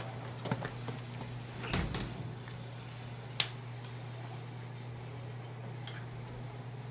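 Sodium metal burning as it skates on water, giving one sharp pop about three and a half seconds in, with a few fainter clicks around it. A steady low hum runs underneath.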